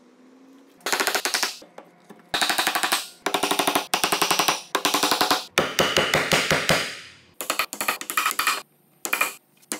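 Mallet knocking wooden joinery keys into a mahogany frame, in quick runs of sharp taps that come in several bursts, each about half a second to a second long.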